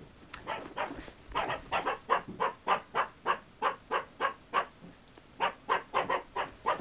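A dog barking repeatedly, about three short barks a second, with a brief pause about two-thirds of the way through.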